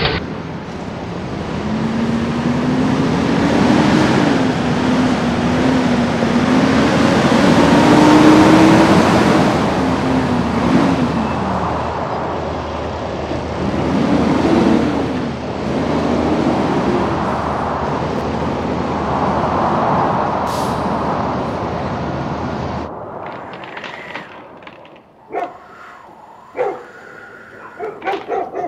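Blizzard wind howling: a steady rush with a wavering moan that slides up and down. It cuts off suddenly about 23 seconds in, leaving a few faint clicks and knocks.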